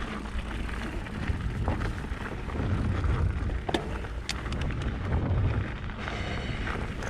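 Mountain bike rolling down a dirt trail: a steady low rumble of tyres and wind on the microphone, with scattered clicks and rattles from the bike.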